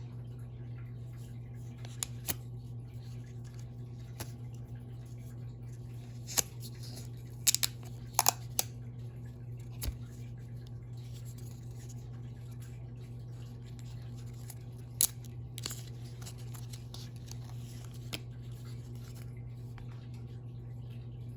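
Packaging of a boxed pair of AirPods being handled and opened: scattered sharp clicks, taps and light rustles, bunched about a third of the way in and again past the middle, over a steady low hum.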